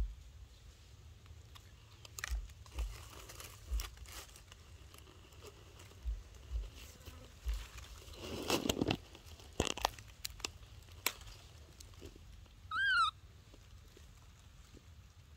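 Dry leaves rustling and crunching in short crackles and clicks, with a few low bumps and a longer rustle about two-thirds of the way through. Near the end comes one short high squeak that rises and falls.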